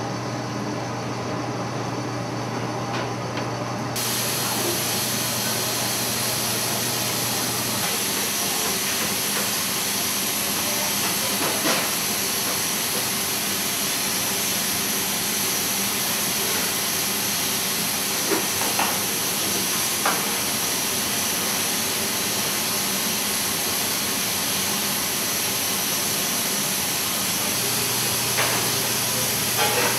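Commercial kitchen background noise: a steady loud hiss that comes in abruptly about four seconds in, over a low hum, with a few sharp clinks of utensils or pans.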